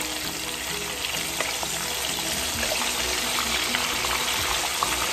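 Chicken wings frying in hot oil in a pan: a steady sizzle dotted with small crackles.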